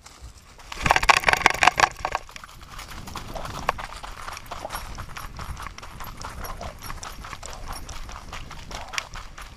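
A pit bull's paws running through dry fallen leaves, a quick rhythmic patter of footfalls and leaf crunching picked up close by a camera strapped to its back. The crunching is loudest about a second in, then runs on more evenly.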